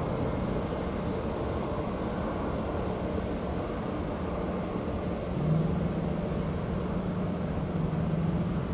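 Jet airliner engines, a steady low rumble with a low hum that rises slightly in pitch and grows a little louder about five seconds in.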